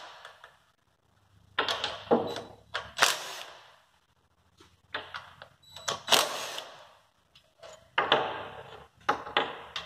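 Cordless drill-driver running in several short bursts, each starting sharply and dying away, as it backs the bolts out of a throttle body.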